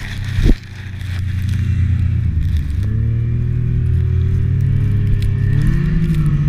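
Snowmobile engine running under way, its pitch stepping up twice. A sharp knock comes about half a second in.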